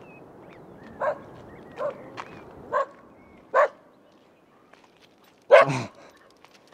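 A dog barking: single barks spaced about a second apart, then two louder barks close together near the end.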